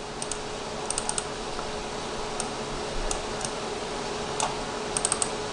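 Sharp clicks of a computer mouse and keyboard, scattered singly and in quick runs of three or four, over a steady hum.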